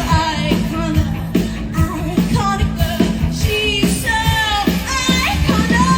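Loud rock music: a woman singing with vibrato over drums and a full band.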